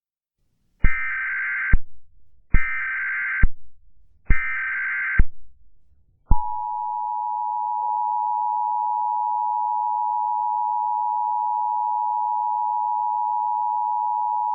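Emergency Alert System tones: three short bursts of SAME header data, each under a second, then the steady two-tone attention signal. The attention signal starts about six seconds in and runs about eight seconds, opening the broadcast of a tornado watch alert.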